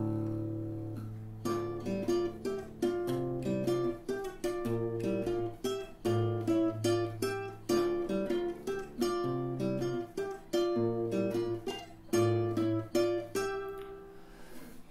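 Acoustic guitar playing the song's instrumental intro. One chord rings out and fades, then plucked notes and chords move over changing bass notes.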